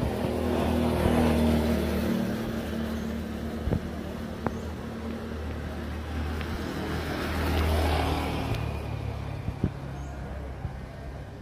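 Motor vehicle engines passing by twice, each swelling up and fading away, with a few faint clicks in between.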